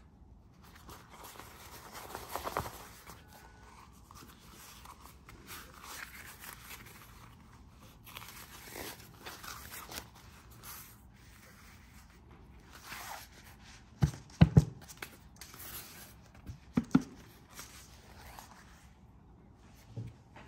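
Sample sheet of PU-coated 600D polyester tent fabric rustling and crinkling as it is handled and flexed, with a few sharp knocks about two-thirds of the way in.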